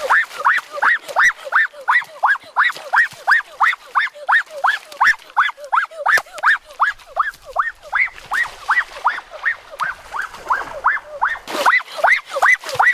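An animal calling over and over in a fast, steady rhythm, about three short rising-and-falling calls a second, with a splash of water near the end.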